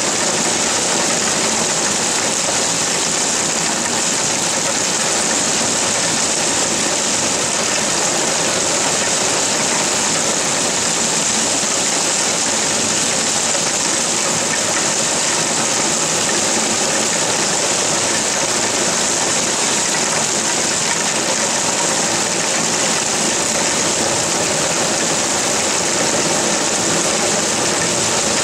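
Heavy rain falling steadily, a dense, even hiss of rain.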